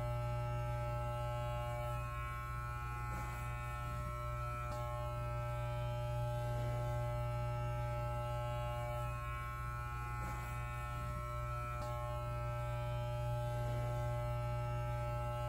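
Corded electric hair clippers running, a steady low buzz with a stack of overtones that does not change.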